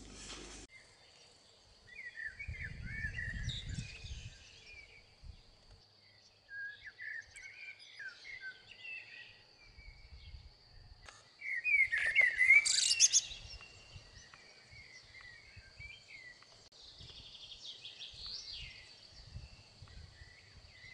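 Several birds chirping and singing, loudest in a dense burst about twelve seconds in, over a steady high-pitched tone.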